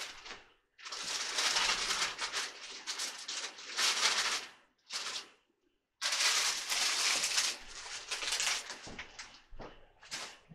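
Dry crinkling and rustling as vegetables for the crock pot are handled by hand. It comes in two long stretches of about three seconds each, with a short burst between them and a few brief rustles near the end.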